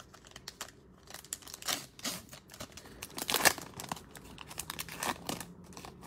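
Trading-card pack wrapper crinkling and tearing as it is pulled open by hand, with the loudest rip about three and a half seconds in.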